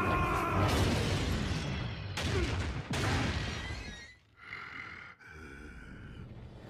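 Sound effects of a robot fight: heavy metallic crashing and smashing, with sharp impacts about two and three seconds in. It cuts off suddenly at about four seconds, and a quieter held tone follows.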